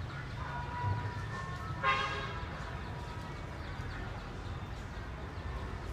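A short, loud horn-like toot about two seconds in, over a steady low rumble of distant traffic.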